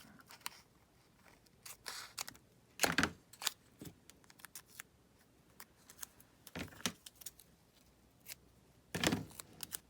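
Scissors snipping through washi tape to cut out a small motif: a scattering of short, irregular snips, the loudest about three seconds in and again near the end.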